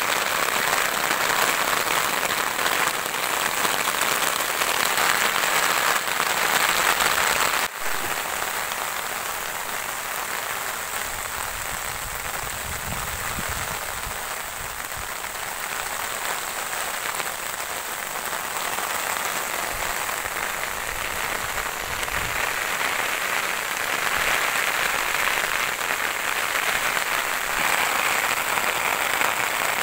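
Steady rain, a dense even hiss, with a momentary break about eight seconds in.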